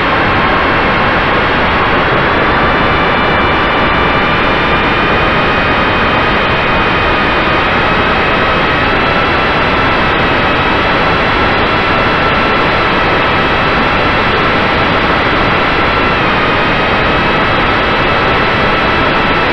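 Motor and propeller of an FPV model aircraft, heard from the onboard camera: a steady high whine over loud wind rush. The whine rises slightly a couple of seconds in and drops a little about sixteen seconds in as the throttle changes.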